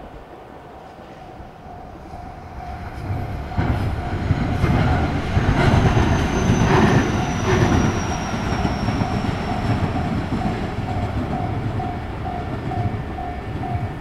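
Two-car JR West electric train passing close by: its rumble builds from about three seconds in, is loudest around the middle, then fades slowly, with a faint high whine that falls slowly in pitch. A level crossing bell rings in steady pulses throughout and stops just after the train has gone.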